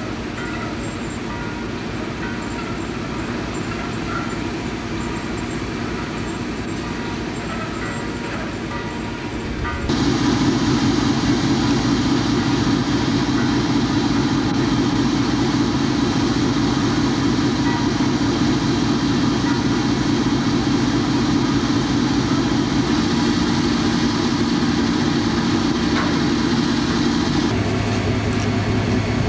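River pusher boat's diesel engine running steadily, heard from on deck, a continuous low drone that grows louder about ten seconds in.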